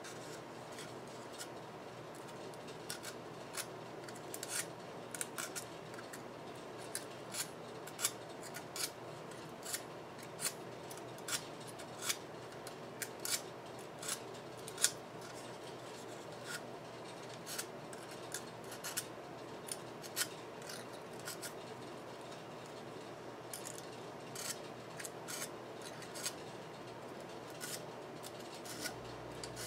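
Varnished copper lead wire of a subwoofer voice coil being scraped clean by hand: dozens of short, sharp scratches at an uneven pace, some in quick clusters. The varnish is being stripped from the wire ends so the coil's resistance can be measured.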